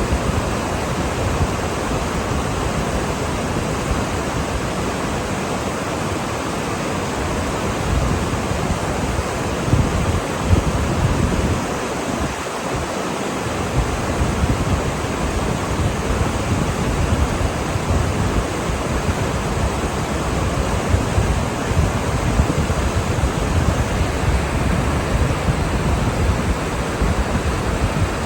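Steady roar of rushing water, with wind buffeting the microphone in irregular gusts.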